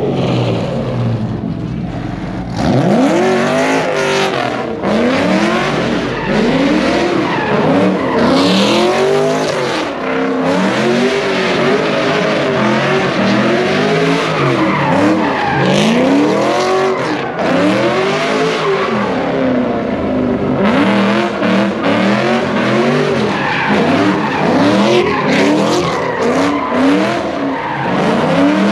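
Cars spinning donuts: engines revving up and down over and over, with tires squealing and skidding on the pavement. The noise gets much louder a few seconds in.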